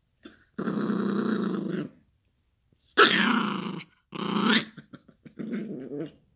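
Yorkshire terrier play-growling over its plush toy: a long growl, then two louder barking growls, then a shorter growl near the end.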